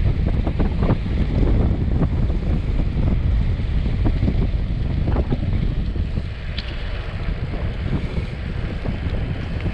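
Wind buffeting the microphone and tyre rumble from a road bike descending at about 35 to 40 km/h, with a few light knocks from bumps in the road. The noise eases slightly about six seconds in as the bike slows.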